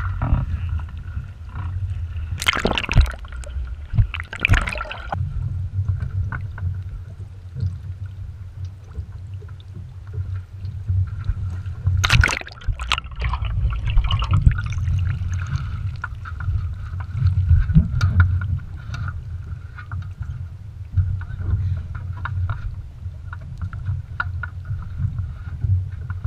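Water splashing and gurgling around the mast-mounted camera of a capsized sailing dinghy as the mast lies on the water and is righted, with a few loud splashes in the first five seconds and another about twelve seconds in. A steady low rumble runs underneath.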